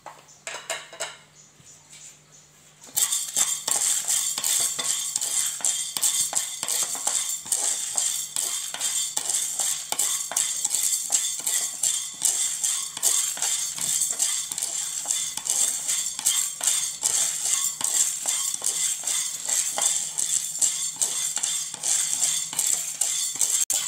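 Wooden spatula stirring dry urad dal, black peppercorns and dried red chillies around a nonstick wok as they dry-roast. The grains rattle and scrape against the pan continuously, starting about three seconds in after a few light clicks.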